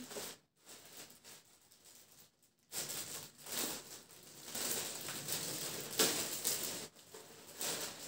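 Clear plastic packaging bag crinkling and rustling as it is opened and clothing is pulled out of it, in uneven stretches that are faint at first and fuller from about three seconds in.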